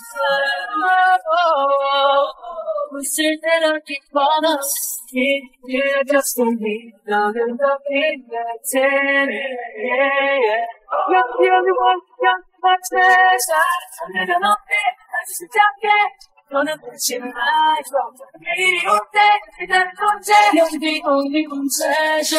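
Isolated vocals of a Korean boy band with the backing track filtered out: young male voices singing a pop melody in turn, at times layered in harmony, with crisp breaths and 's' sounds between the lines.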